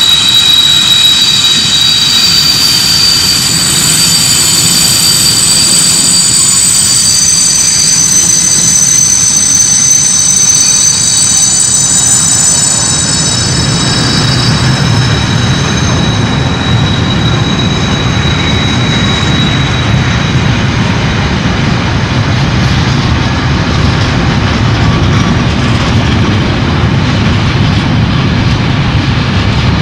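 Freight train of sliding-wall covered wagons rolling past on steel rails, with a steady loud rumble of wheels on track. High, thin, steady ringing tones sit over the rumble and fade out after about a dozen seconds.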